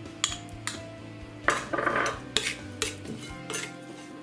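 A metal spoon clinks and scrapes against glass bowls while chopped parsley is scraped out of a small glass dish and stirred into a salad. There are sharp clinks about twice a second, with a longer scrape near the middle.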